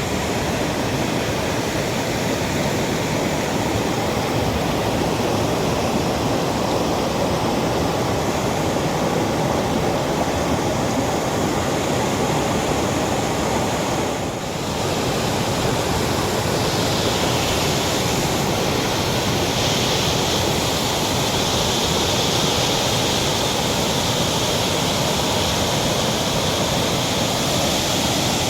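Water of a monsoon-swollen waterfall rushing and splashing over rocks as a loud, steady rush. It dips briefly about halfway through, and a brighter high hiss joins in the second half.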